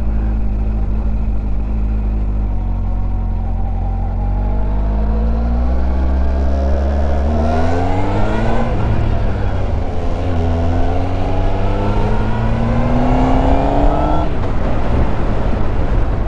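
Honda CBF1000's inline-four engine on the road: steady at first, then its pitch climbs as the bike accelerates, drops sharply about nine seconds in, climbs again and drops once more near the end.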